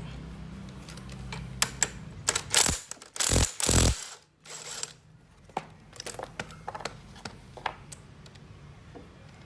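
Metal tools and parts clanking and clinking during work on a scooter's CVT: a run of loud sharp clanks in the first few seconds, then a few scattered lighter clicks. A low steady hum sounds under the first couple of seconds.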